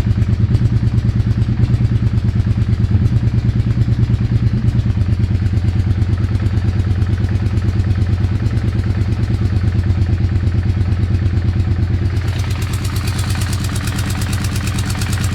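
Engine running steadily at idle with an even, rapid pulsing beat. A brighter hiss joins about twelve seconds in. The engine is being recorded because it makes a weird sound.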